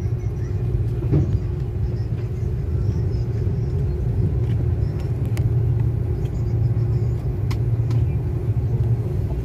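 Airliner cabin noise while the plane rolls on the ground: a steady low rumble of the engines and wheels with a steady hum over it and a few faint clicks.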